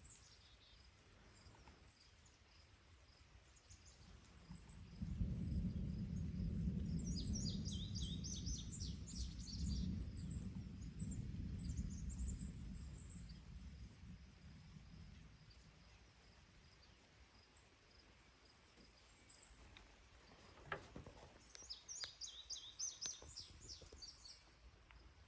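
Thunder rumbling low for about ten seconds, starting suddenly about five seconds in and slowly fading. A bird sings quick runs of high chirps over it, and again near the end.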